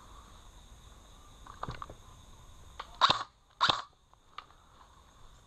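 Crickets chirping steadily in the woods. About three seconds in, two loud, short, sharp noises come a little over half a second apart.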